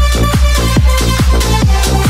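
Electronic dance music with a deep kick drum on every beat, a little over two beats a second, under steady synth chords.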